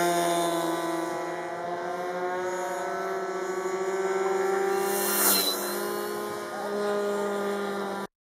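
Small engine and propeller of a radio-controlled model aeroplane running at high throttle, a steady buzz whose pitch slowly wanders. It swells briefly louder about five seconds in, then cuts off abruptly near the end.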